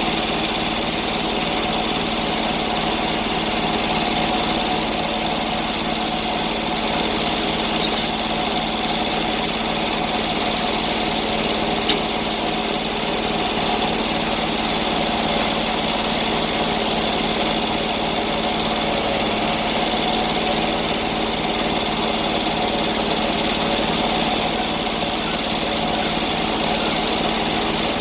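Sawmill engine running at a steady speed, with one light click near the middle.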